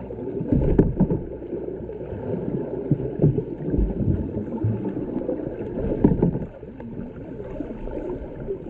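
Underwater sound through a waterproof action camera's housing: muffled sloshing and gurgling of seawater with many irregular low knocks and thumps as a swimmer dives down towards the camera. Everything is dull, with no high sounds.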